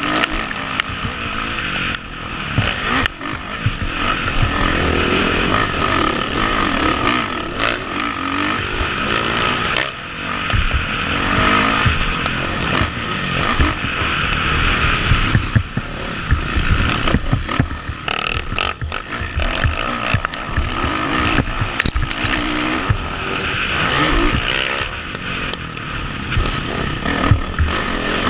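Motocross dirt bike's engine revving hard, its pitch rising and falling constantly as the rider accelerates and shuts off through the track's corners and straights, with frequent knocks and wind noise on the helmet-mounted camera.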